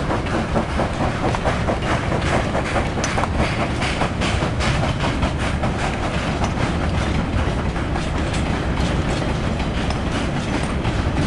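Freight train of tank wagons rolling past behind a steam locomotive, its wheels clattering steadily over the rail joints.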